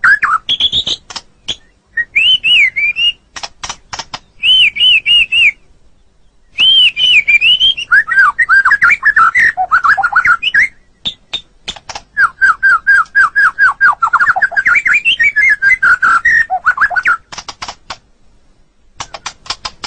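White-rumped shama (murai batu) singing: fast runs of repeated whistled notes mixed with sharp clicking rattles. The song breaks off briefly twice.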